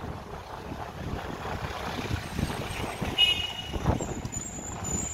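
Street ambience: a motor vehicle running along the street with wind on the microphone, a brief high-pitched beep about three seconds in and a sharp knock just before four seconds.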